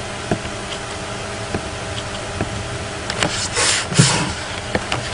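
Scattered computer mouse clicks, about seven over a few seconds, on top of a steady background hum, with a brief hiss about three and a half seconds in.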